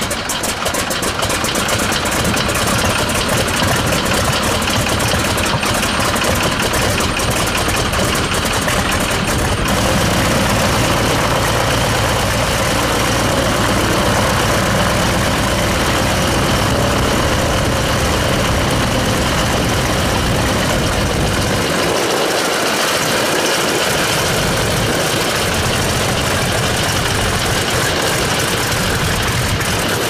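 Boeing PT-17 Stearman's seven-cylinder Continental R-670 radial engine idling just after start-up, running loud and steady with the propeller turning.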